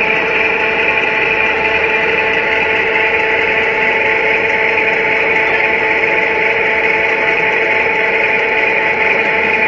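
T-55A tank running steadily after its turret traverse: an even, unbroken whirring hum with several steady tones in it and little deep bass.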